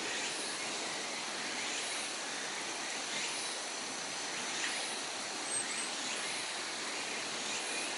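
Steady outdoor ambient noise, an even hiss, with a few faint short chirps.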